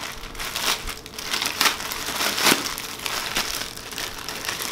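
Grey plastic poly mailer bag crinkling irregularly as it is handled and opened.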